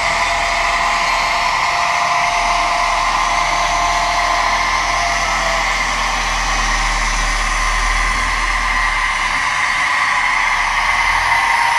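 HO-scale model locomotive running, its small electric motor giving a steady whir with a few held tones.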